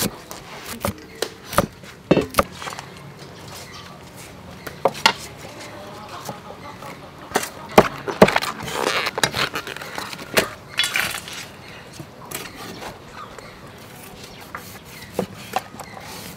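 Cleaver chopping on a thick wooden chopping block: irregular, sharp knocks of the blade against the wood, with a stretch of rustling of vegetables being handled around the middle.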